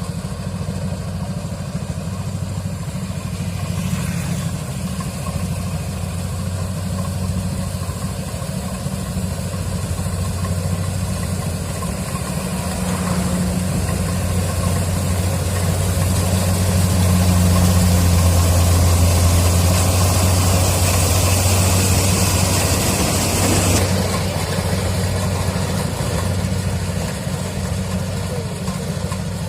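Kubota DC-70 Plus combine harvester's diesel engine running steadily with a low hum. It grows louder around the middle with an added hiss, then drops back suddenly about four-fifths of the way through.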